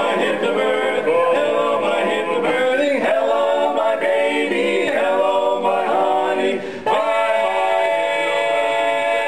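Men's a cappella group singing in close harmony, without instruments. About seven seconds in the voices break off briefly, then hold one long chord.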